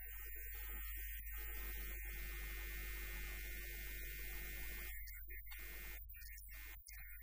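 Low, steady electrical mains hum with an even hiss and a few faint steady tones above it.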